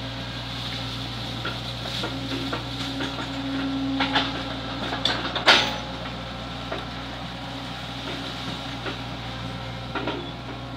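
Hydraulic excavator's diesel engine running with a steady low hum that swells for a couple of seconds, under a few sharp metallic clanks from the working machine, the loudest about five and a half seconds in.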